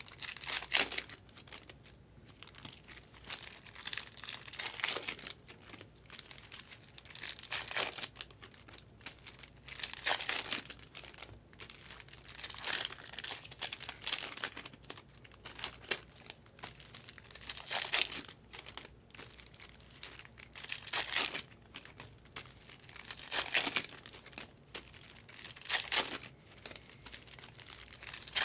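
Foil wrappers of 2023 Topps Chrome Cosmic trading-card packs being torn open and crinkled by hand, in short rustling bursts every two to three seconds.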